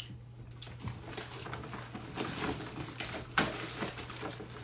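Glossy plastic bag rustling and crinkling as hands rummage through it, in irregular crackles with a sharper one about three and a half seconds in.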